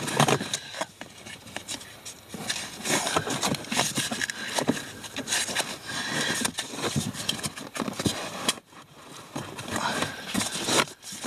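A new pleated cabin air filter being pushed by hand into its plastic housing under a Volkswagen Jetta's glove box: irregular scraping and rustling of the filter frame against the plastic, with scattered clicks and knocks.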